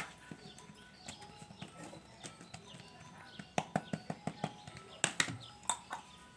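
A series of light taps and clicks, with a quick run of them about halfway through and a few more near the end, over faint steady tones.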